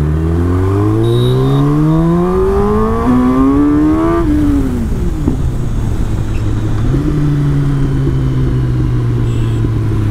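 Kawasaki Ninja ZX-10R's inline-four engine pulling hard in gear, its pitch rising steadily for about four seconds, then dropping as the throttle closes and settling to a steady cruise, with wind rush on the onboard microphone.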